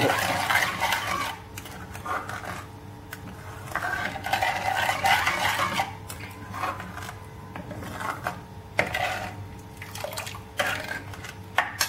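Steel ladle stirring and scraping around an aluminium kadai of hot milk, dissolving sugar, in stretches of scraping with a few sharp clinks of metal on metal later on.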